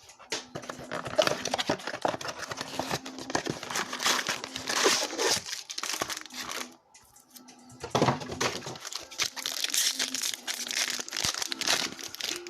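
Plastic-foil wrappers of Panini Prizm Draft Picks card packs crinkling and tearing as packs are ripped open and handled. There are two stretches of handling with a short lull about halfway through.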